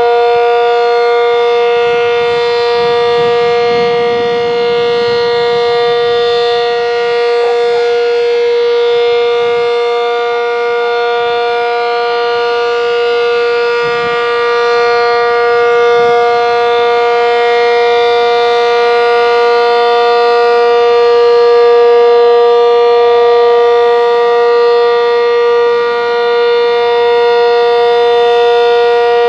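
American Signal Cyclone C-125 outdoor warning siren sounding the steady alert signal: one loud, unwavering tone held at full pitch, swelling and easing slightly in loudness.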